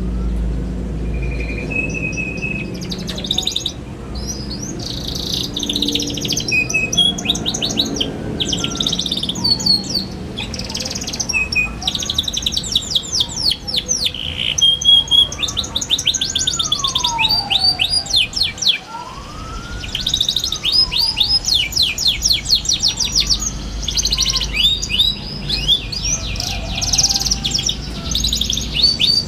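A young canary singing in fast, rattling trills of sharp, high-pitched chirps, one burst after another with short breaks. Fainter, slow whistles rise and fall lower beneath it.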